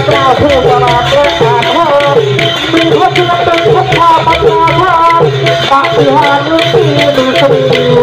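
Thai long drums (klong yao) played by a troupe in a fast, steady beat, with a gliding melody line over the drumming.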